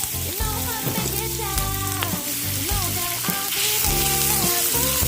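Chopped onion sizzling and frying in hot olive oil in a pan, a steady crackling hiss, with background music playing over it.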